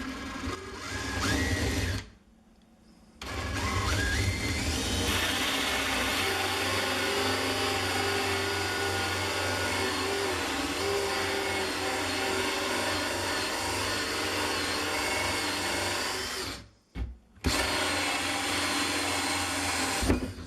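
Cordless drill spinning a hole saw through a cultured marble countertop. It starts, stops for a moment about two seconds in, then spins back up and cuts steadily. It stops briefly once more near the end before finishing the hole.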